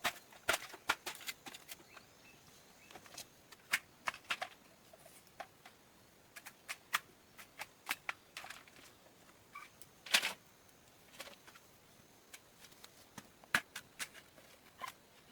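Irregular sharp taps and clicks, some in quick clusters, with a longer, louder scraping burst about ten seconds in.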